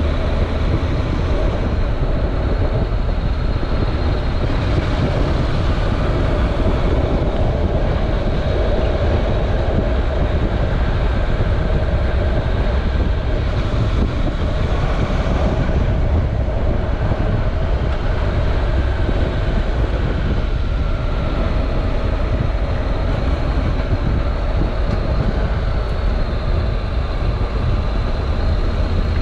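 Honda NC700X motorcycle's parallel-twin engine running at a steady road speed, heard on board together with wind noise over the camera microphone.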